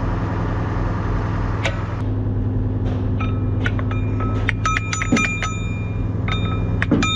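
Hammer blows on steel machinery, each strike ringing metallic at several pitches. A few scattered blows come first, then a quick run of them about four to five seconds in. Under them runs the steady hum of an idling engine, most likely the forklift holding the part.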